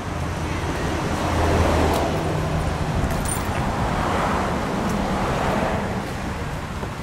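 Street traffic noise: road vehicles passing with a low engine hum, swelling loudest about a second and a half in and again near the middle.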